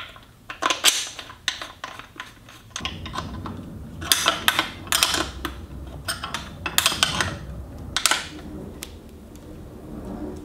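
Hands handling small motorcycle hardware: a steel bolt and nut, a bracket and a round indicator light, giving a string of sharp clicks and light metallic clinks, with a low rubbing rumble from about three seconds in.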